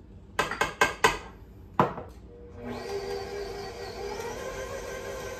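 A few sharp knocks in the first two seconds, then an electric stand mixer starts about two and a half seconds in and runs steadily, whirring with a steady hum as its paddle beats the creamed butter, sugar and vanilla.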